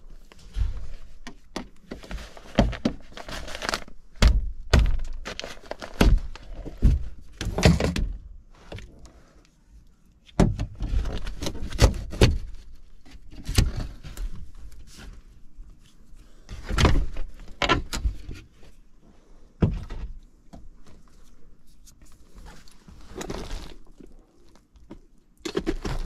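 Irregular thunks, knocks and scrapes of sheet metal as the access panel of a Rheem air handler is worked loose and pulled off to open up the evaporator coil.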